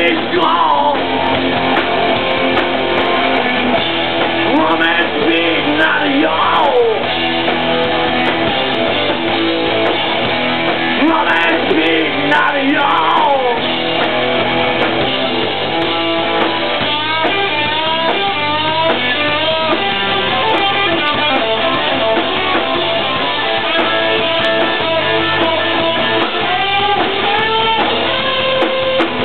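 Punk rock band playing live: electric guitars, bass guitar and drums, with sung vocals, at a steady loud level.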